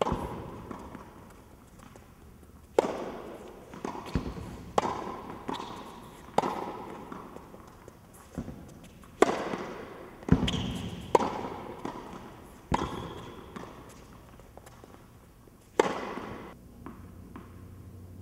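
Tennis balls struck by a racket and bouncing on an indoor hard court: a run of sharp pops, irregularly spaced, each ringing on in the echo of the hall.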